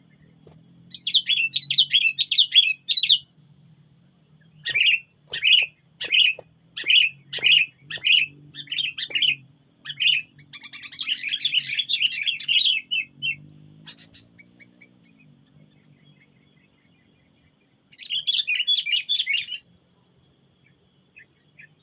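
Sooty-headed bulbuls (kutilang) calling. There are bursts of rapid chattering about a second in, around the middle, and again near the end, and between them a run of separate sharp calls, about two a second.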